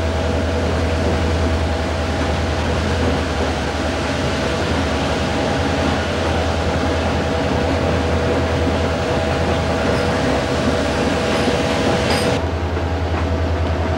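A moving passenger train heard from inside a coach: a steady low rumble of wheels on the rails with a broad rushing hiss and faint steady hums. About twelve seconds in, the higher hiss drops away abruptly.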